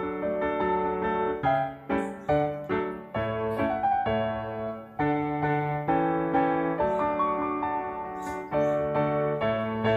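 Background piano music: a gentle melody of single notes over low bass notes, played at an even pace.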